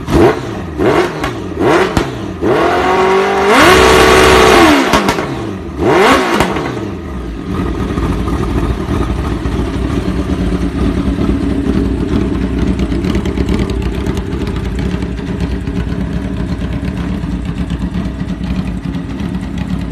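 Honda CBR1000RR inline-four engine, swapped into a Honda Supra X motorcycle, blipped several times in quick succession. It is then held high and loud for about a second and a half, blipped once more, and settles to a steady idle from about eight seconds in.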